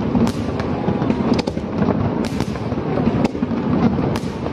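Aerial fireworks display: a dense, continuous barrage of shells bursting, with several sharp bangs standing out above the rumble, about one every half second or so.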